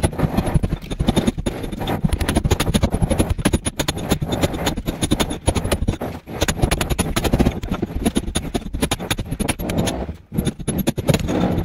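Hammer striking a steel chisel held against a brick wall, many quick strikes a second with short pauses, as a channel is cut into the brickwork for a pipe.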